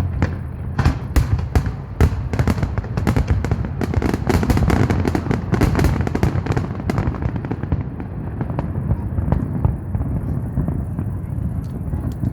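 Fireworks display: a rapid run of bangs and crackles for about the first seven seconds, thinning to scattered bangs after that.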